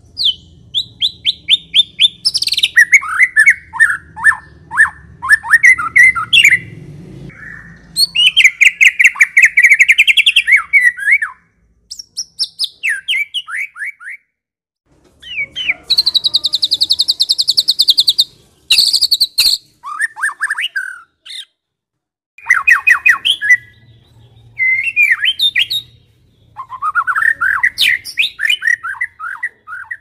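White-rumped shama (murai batu) singing loud, varied phrases of rapid repeated notes and trills, broken by short pauses, with a long buzzy high trill about halfway through.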